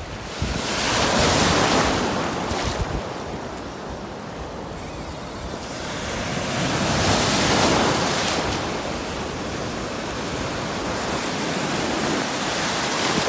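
Surf breaking on a beach: waves washing and crashing in a steady rush that swells louder about a second in and again around seven seconds.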